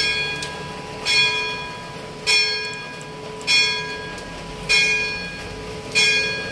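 Church bell tolling: six evenly spaced strikes about 1.2 seconds apart, each ringing on and fading into the next over a lingering hum.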